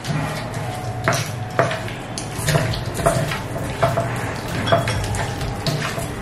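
Clinks and knocks against a bowl as raw prawns are mixed with salt and turmeric, a sharp clink about once or twice a second.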